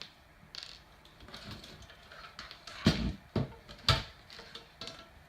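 Several sharp knocks and clicks of hard objects being handled, the loudest about three and four seconds in.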